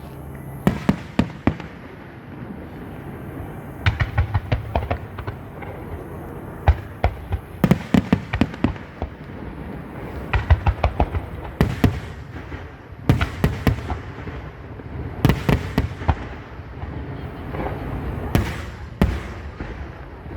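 Fireworks display: clusters of rapid, sharp bangs and crackles, a fresh volley every two or three seconds.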